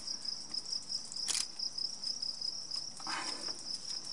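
A steady, high, finely pulsing insect trill, like a cricket's. Over it a ratchet on the fuel rail bolts gives a single sharp click about a second in and a short scrape near three seconds.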